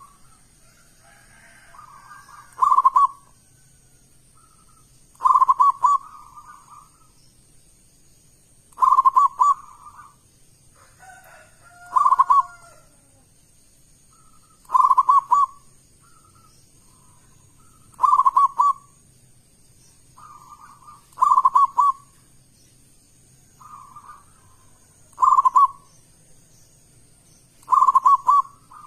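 Zebra dove (perkutut) in full song, repeating its cooing phrase roughly every three seconds: each phrase a soft lead-in note followed by a loud, quick run of coos.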